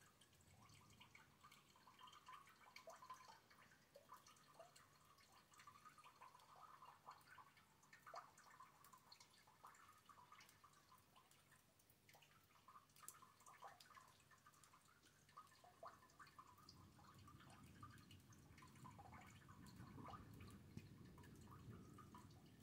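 Faint, scattered drips and taps of rainwater falling during a thunderstorm. A low rumble builds in the last few seconds.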